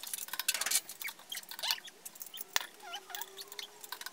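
Ratchet wrench clicking in quick irregular runs as tapered lug nuts are tightened onto wheel spacer studs, with a few short chirps in the middle.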